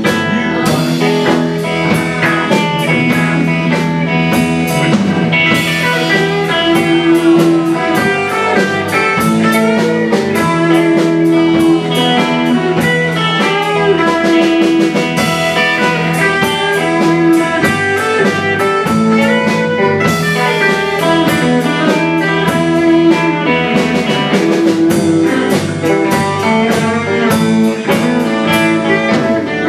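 Live blues band playing an instrumental break: electric guitars, bass guitar and drum kit, with a lead guitar line that bends some notes.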